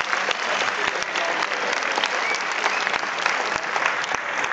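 Audience applauding: many hands clapping at once, a steady, dense clatter that does not let up.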